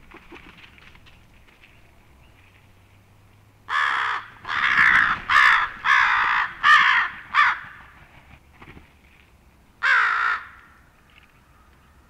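Crows cawing: a quick run of about six harsh caws, then one more about two seconds later.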